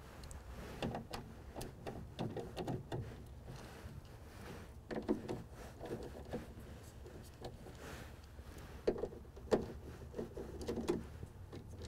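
A screwdriver backing out the screws that hold a factory car-door speaker: faint scattered clicks, scrapes and taps of metal on the screws and the speaker's plastic frame, with a few louder taps around the middle and near the end.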